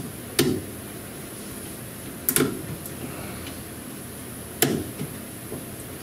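Three sharp clicks, about two seconds apart, as a pick tool works at the brittle plastic retainer of a fuel-line quick-connect fitting.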